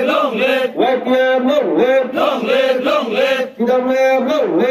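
A group of men chanting a slogan in unison, the same shouted phrase repeated over and over in a steady rhythm.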